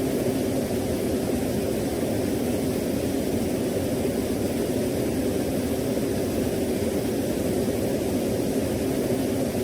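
Waterfall ambience: a steady, deep rushing roar that holds level and unchanged throughout.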